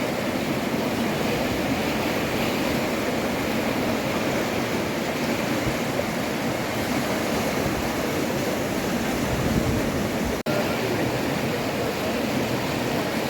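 Loud, steady rushing of floodwater or storm water, an unbroken roar of noise with no distinct events. It cuts out for an instant about ten seconds in.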